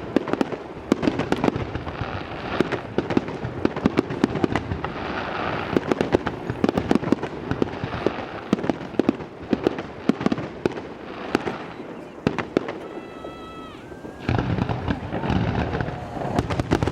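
Fireworks finale: a dense run of rapid bangs and crackles. A brief steady tone sounds about thirteen seconds in, and after that the bangs thicken into a heavier continuous rumble.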